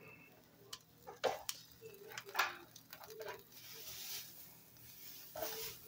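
Metal tongs clicking lightly against a wire grill grate as slices of marinated meat are turned, a few separate clicks, with a soft sizzling hiss from the meat over the gas flame.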